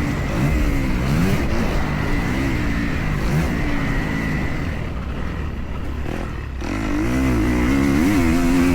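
Kawasaki KX250F single-cylinder four-stroke motocross engine under hard riding, its pitch rising and falling repeatedly as the throttle opens and closes. It eases off about five seconds in, then revs up strongly again.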